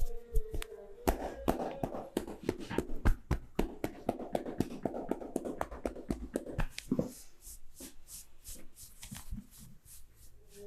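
Rapid hand tapping and patting of a massage, several strikes a second. It grows denser and fuller about a second in, then turns to lighter, thinner taps for the last few seconds.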